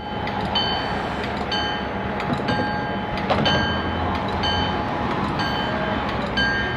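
CN freight train rolling past: a steady rumble of wheels on rails with scattered clicks from the rail joints, and a high ringing that comes and goes every half second or so.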